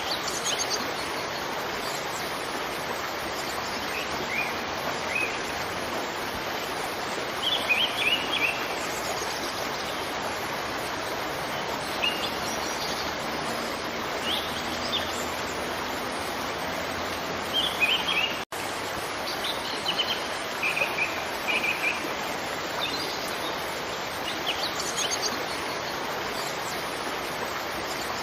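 Steady rush of a waterfall with small birds chirping in short scattered calls over it. The sound cuts out for an instant about two thirds of the way through.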